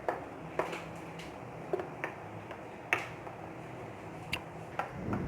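Spoon or spatula clicking against a bowl while stirring urad dal batter: irregular light clicks, roughly one every half second.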